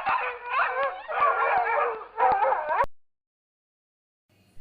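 Dog howling and whining in a run of wavering calls, stopping about three seconds in.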